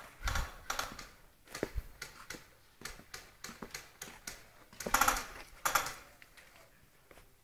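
Irregular clicks, taps and scuffs, with louder scuffing bursts right at the start and twice about five seconds in.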